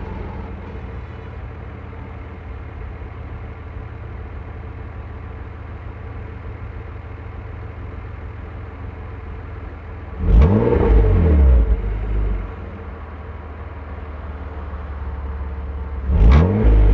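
Nissan Skyline ER34's naturally aspirated RB25DE straight-six idling steadily through a BNR34 GT-R factory exhaust-pressure-valved muffler. It is revved twice, about ten and sixteen seconds in; each blip rises in pitch and falls back to idle within a couple of seconds and is far louder than the quiet idle.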